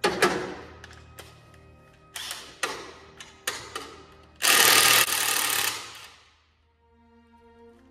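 Metal tools and parts clink against the jeep's engine several times, then a handheld power tool runs in one burst of about a second and a half, about halfway through, while an engine component is being unbolted. Background music plays underneath.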